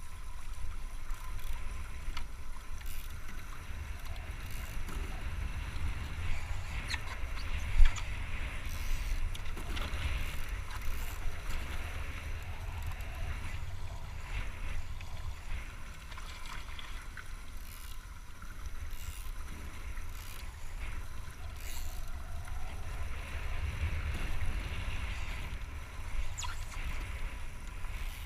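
Wind rumbling on the microphone over water rushing past an International Moth sailing dinghy, with scattered light ticks and one sharp knock about eight seconds in.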